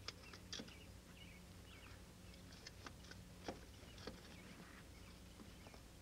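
Near silence: a few faint clicks and scrapes of a filter wrench tightening a spin-on oil filter, over a low steady hum.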